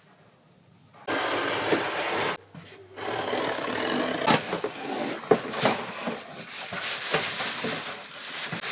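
Scraping and rubbing noises with scattered light knocks: a short stretch about a second in, a brief pause, then a longer stretch.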